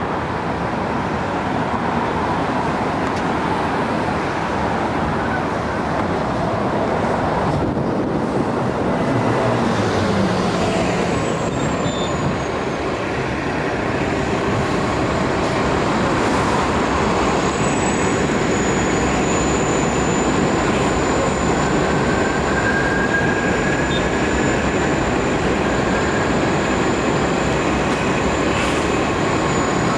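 Articulated Nova Bus LFS diesel city bus idling at a curbside stop, over a steady rumble of street traffic. A thin high whine comes in about halfway through and holds.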